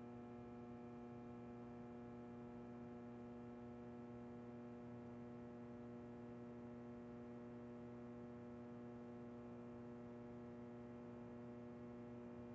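Faint, steady electrical hum with a stack of evenly spaced overtones, like mains hum on the audio track.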